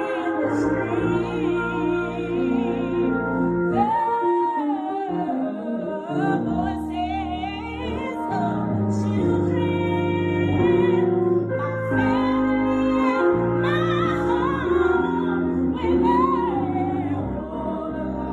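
Gospel song with a solo singer over sustained keyboard chords and bass, the voice wavering in long held notes.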